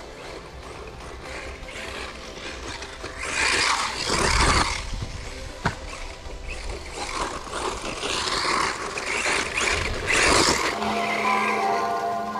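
Small brushless 4WD RC car driving off-road: a steady electric whine with surges of tyre and drivetrain noise as it accelerates, loudest about three to five seconds in and again around eight to ten seconds in.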